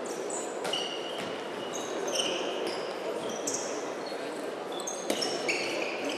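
Sports shoes squeaking again and again on an indoor court floor as handball players shuffle and shift in defence, with a few sharp knocks of a ball or feet in between, echoing in a large hall.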